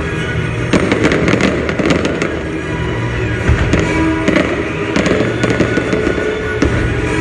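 Fireworks going off in quick succession, a dense run of sharp cracks and pops starting about a second in, over music playing in the background.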